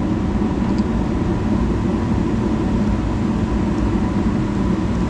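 Steady low machine rumble that starts suddenly.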